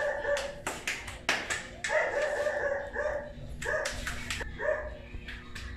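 Hands slapping and patting a ball of fresh corn masa flat to shape gorditas, in sharp irregular pats. A dog barks and yelps several times over it.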